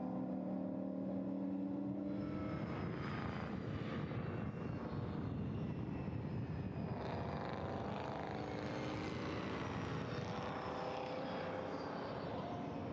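V8 racing car engines running hard on a circuit. The pitch rises and falls as the cars change gear and accelerate, with a clear rising sweep past the middle.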